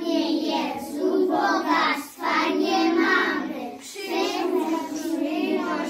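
A group of young children singing together, phrase after phrase, with short pauses for breath between lines.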